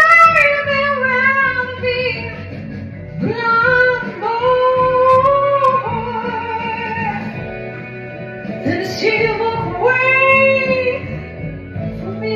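A soul singer holding long, wavering notes in wordless runs over a steady accompaniment, in three phrases: one at the start, one about three seconds in and one about nine seconds in.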